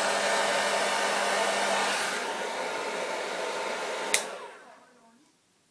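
Hair dryer blowing steadily, then switched off with a click about four seconds in, its motor winding down with a falling pitch to quiet.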